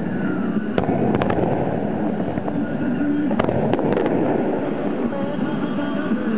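Aerial fireworks shells heard from the launch site: a dense, continuous rumble of shells firing and bursting, with sharp reports about a second in and again around three and a half to four seconds in.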